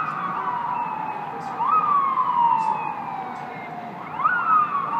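Emergency vehicle siren wailing, its pitch sweeping up quickly and falling slowly, repeating about every two and a half seconds, over a steady city noise.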